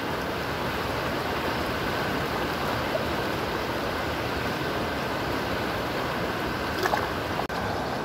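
River water rushing steadily over shallow rapids and riffles, cutting out for an instant near the end.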